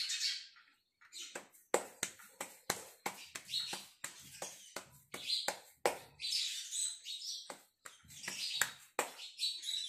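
Bare hands patting a ball of pearl millet and sorghum dough flat between the palms to shape a rotla: a run of soft, separate slaps, about three a second.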